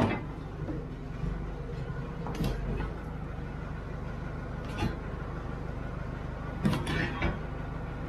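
An engine running steadily with a low hum, with a few sharp knocks and clanks of wood and metal, about every two seconds and three close together near the end.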